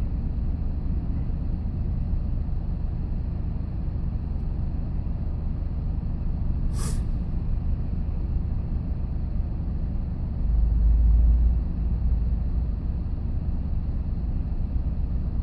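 Steady low rumble of a vehicle being driven, engine and road noise, with a brief sharp hiss about seven seconds in and a heavier low rumble for about a second near ten seconds in.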